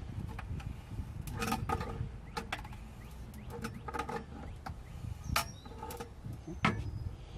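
Sink drain locknut being tightened with channel-lock pliers: irregular clicks and creaks as the nut turns and the washer is compressed into a seal.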